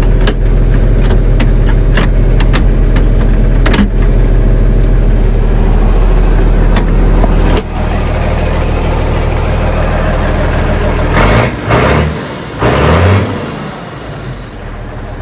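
John Deere 4440 tractor's six-cylinder diesel engine running steadily, with several sharp clicks over it in the first half. Its sound drops about halfway through, and a few short swells that rise and fall in pitch come near the end.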